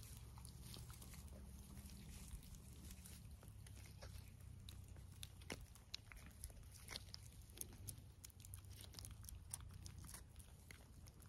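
Kittens licking a squeeze-tube lickable cat treat, faint scattered wet clicks.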